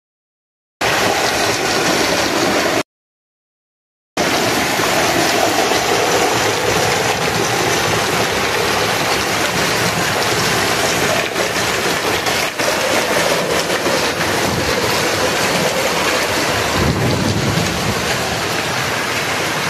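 Severe hailstorm with wind, heard from inside a house behind a window: a loud, dense, unbroken noise of hail and rain striking, with scattered sharper hits. The sound cuts out briefly twice in the first few seconds.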